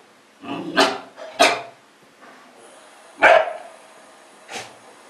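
Shetland sheepdog puppy barking at its own reflection: four short, sharp barks, the loudest a little past the middle.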